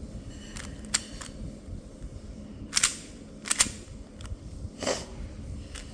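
Plastic Moyu speed cube being turned by hand: a handful of sharp, separate clacks as the layers snap round, the loudest a few seconds in.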